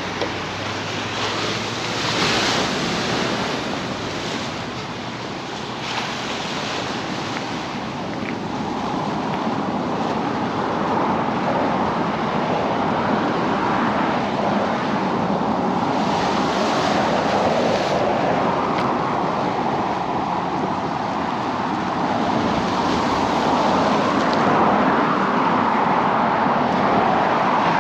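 Ocean surf washing on a beach, with wind: a steady rushing noise with louder surges now and then, getting somewhat louder toward the end.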